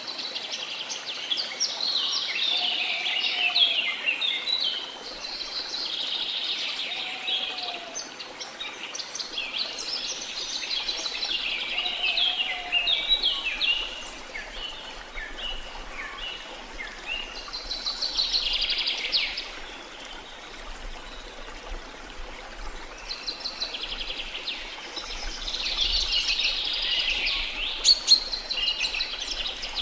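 Tropical rainforest birds singing in repeated bursts of quick chirps and trills over a steady wash of falling water from a waterfall. A lower, short arched call repeats about every four seconds in the first half.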